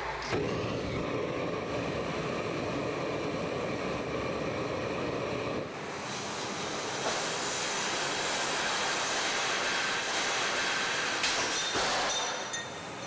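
Model steam locomotive heated by gas blowtorches: a steady rush of torch flame and steam that shifts about six seconds in to a higher, brighter hiss as steam billows out, with a few sharp clicks near the end.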